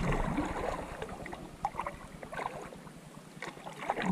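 Canoe paddle strokes in the water: splashing and dripping, with scattered light clicks.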